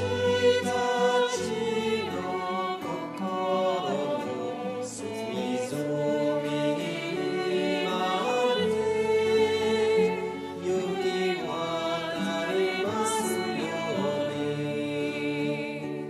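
Women's voices singing a song together, holding long notes.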